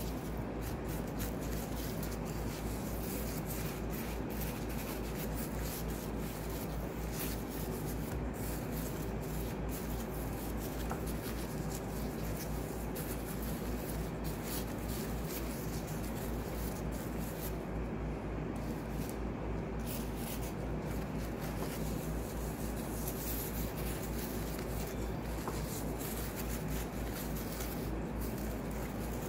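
Gloved fingers rubbing and pressing a fried doughnut into a plate of granulated sugar: a steady, gritty scratching of sugar crystals, over a constant low hum.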